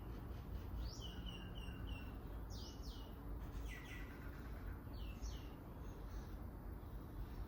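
Small birds chirping: quick descending chirps and a short run of four rapid notes, repeated every second or so, over a steady low background rumble.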